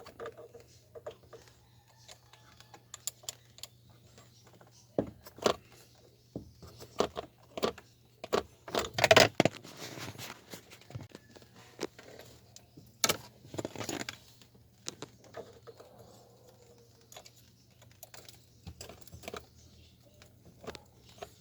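Scattered metallic clicks and key jangling from hands and tools working on the steering column at the ignition switch, with louder rattling bursts about nine seconds in and again around thirteen seconds. A faint steady low hum runs underneath.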